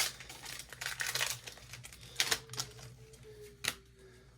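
Trading cards and foil booster-pack wrappers being handled: light crinkling early on and a few sharp taps and clicks, the loudest two about two and three and a half seconds in.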